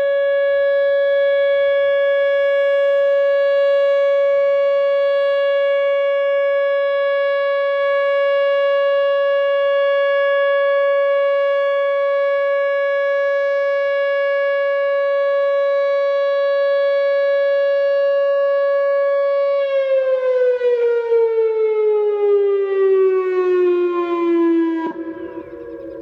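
Whelen WPS 2908 electronic outdoor warning siren sounding a loud, steady single-pitched tone for a tornado warning drill. About three-quarters of the way through, the pitch glides steadily down over several seconds, like a wind-down. Shortly before the end the level drops sharply.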